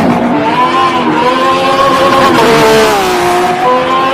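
Race car engine sound effect, loud, the engine revving: pitch climbs about half a second in, holds, drops back near three seconds, then climbs again near the end.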